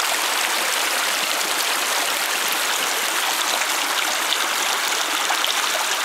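Creek water running and splashing over rocks as it spills into a pool: a steady, even rush, mostly high-pitched with little low rumble.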